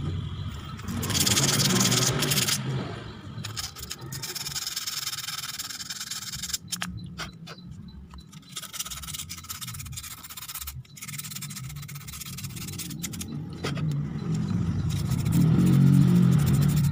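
Coarse sandpaper rubbed by hand over the clutch shoe linings of an automatic scooter's centrifugal clutch, in uneven scraping strokes that are loudest about a second in and again near the end. The sanding cleans off lining dust that has hardened on the shoe surface, a cause of the scooter juddering as it pulls away.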